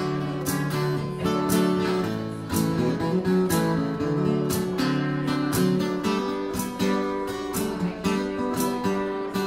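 Solo acoustic guitar playing an instrumental break, a steady run of plucked and strummed notes over sustained bass notes, with no singing.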